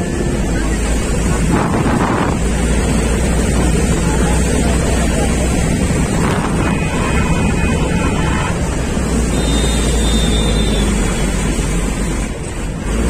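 Wind buffeting the microphone while riding in a moving vehicle, a steady rush with the vehicle's engine and road rumble underneath.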